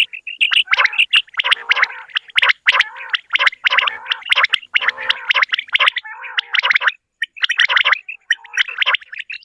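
Common quail calling: a dense run of quick, repeated short notes, briefly breaking off about seven seconds in.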